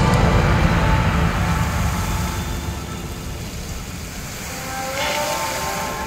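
The fountain show's music soundtrack over a loud low rumble, which fades after about two seconds. New held notes come in about five seconds in.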